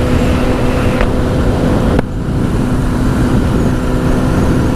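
Honda CBR1000's inline-four engine running steadily under way through its Two Brothers exhaust, mixed with rushing wind noise. About two seconds in there is a sharp click and a brief dip in level before the engine note carries on.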